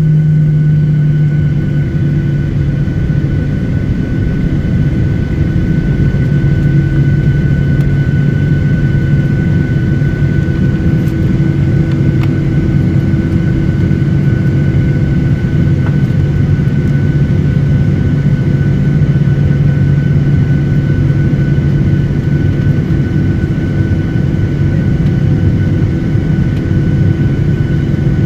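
Cabin noise inside a Boeing 737-800: its CFM56 jet engines running steadily at low power, a steady low hum with a thin high whine over a wash of air noise. The hum dips slightly in pitch about a second in.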